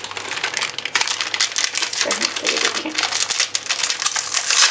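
Plastic Oreo biscuit wrappers crinkling as the packets are opened by hand: a dense, irregular crackle of sharp clicks that starts about a second in and is loudest near the end.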